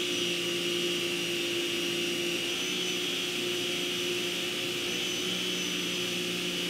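Rock&Rocker 1800-watt electric pressure washer running steadily, a constant motor-and-pump hum with a high whine over it. It measures about 74–75 dB at seven feet, fairly quiet for its rating.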